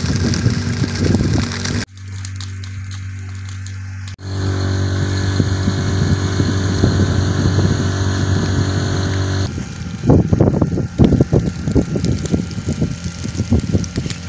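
Steady engine hum, typical of a fire truck's pump engine running to feed the hose. In the last few seconds it gives way to choppy, irregular low rumbling gusts.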